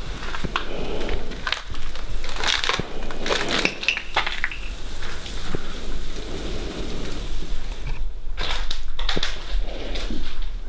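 Footsteps crunching over debris and grit in irregular steps, with scattered sharp clicks.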